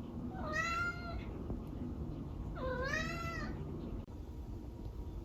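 A female kitten meowing twice, two soft, high meows about two seconds apart, each rising and then falling in pitch, over a steady low background hum.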